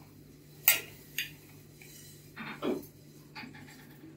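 A metal spoon clinking against the rim of a large metal cooking pot as ground black pepper is tipped in: one sharp clink a little under a second in, a lighter one half a second later, then softer knocks and scrapes.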